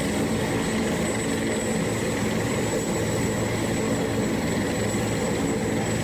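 Helicopter sound: the rotor chopping rapidly over a steady engine whine. It starts and cuts off abruptly.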